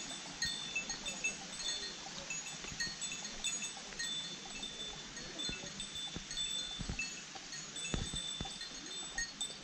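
Footsteps on a paved path, as scattered soft thuds, while short, clear high notes repeat throughout in the background.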